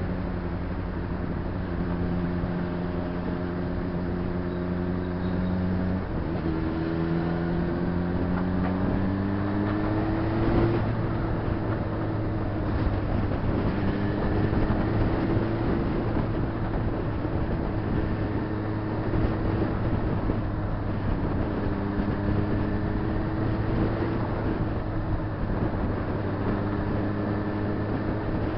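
Honda CBR600RR inline-four engine running under way, with wind and road rush over it. About six seconds in the engine note drops, then climbs again over the next few seconds before settling to a fairly steady cruise.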